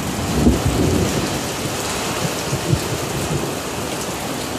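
Steady rain falling in a thunderstorm, with thunder rumbling low underneath and swelling briefly about half a second in and again near three seconds in.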